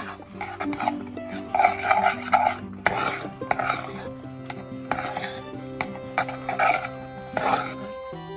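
A spoon scraping and stirring in a pot of mac and cheese in short, irregular strokes, over background music with held notes.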